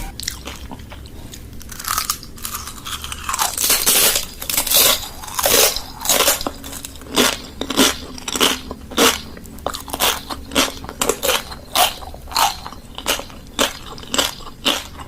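Plastic packaging being handled close to the microphone: a long run of irregular crinkling and crackling strokes, about one or two a second, as an order is wrapped by hand.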